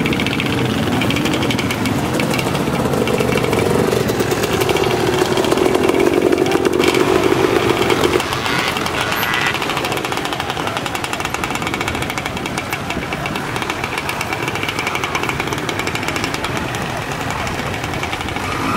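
A motor vehicle engine running close by, rising slightly in pitch as it revs over the first several seconds and cutting off abruptly about eight seconds in. A steady rough rumble carries on after that.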